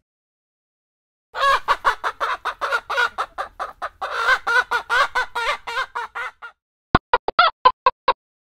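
Chicken clucking: after a second of silence, a fast, agitated run of clucks lasting about five seconds, then a short burst of about seven quick clucks near the end.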